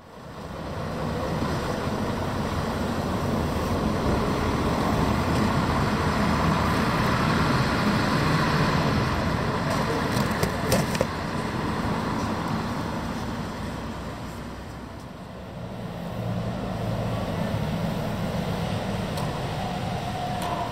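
Road traffic noise from cars and buses running on the square, swelling to its loudest around eight seconds in, easing off near fifteen seconds and rising again.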